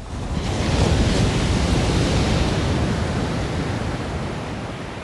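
A recording of an ordinary beach wave, processed with equalization, compression, saturation, a limiter and downward pitch-shifting into a much bigger, dense wave sound. It is a rush of noise, heaviest in the low end, that swells within the first second and then slowly dies away.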